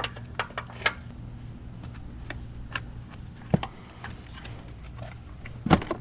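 Light, irregular clicks and knocks of tools and plastic engine-bay parts being handled, with two sharper knocks about three and a half seconds in and near the end, over a faint low hum.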